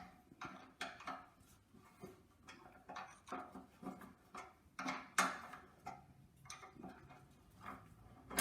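A spanner undoing a bolt on a tractor's radiator brace: a run of short metallic clicks, about two or three a second, as the bolt is worked out.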